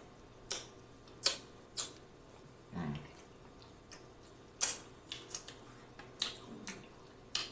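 Close-miked mouth sounds of eating: several sharp, wet lip smacks and clicks at uneven intervals as food is chewed, with a brief low hum about three seconds in.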